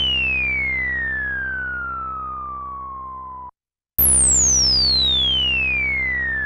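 Analog-style synth notes with the filter resonance turned up high and swept down by a long envelope decay, giving a "shooting laser" sound: a whistling tone falls steadily from very high to mid pitch over a steady low note. The first note, from a Roland SH-101, cuts off about three and a half seconds in. After a short gap the same patch plays on a Roland S-1 and begins falling again.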